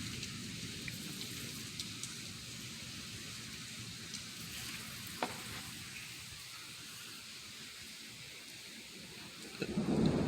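Heavy rain falling steadily: an even hiss with scattered drip ticks and one sharp click about five seconds in, over a low rumble that fades away during the first few seconds.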